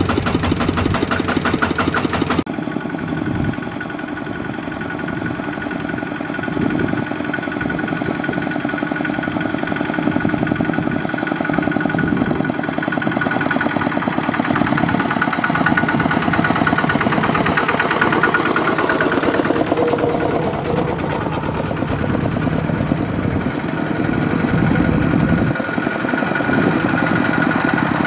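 Single-cylinder diesel engine of a two-wheel walking tractor chugging steadily as it pulls a trailer loaded with sacks of rice. The sound changes abruptly about two seconds in, where a second tractor of the same kind takes over.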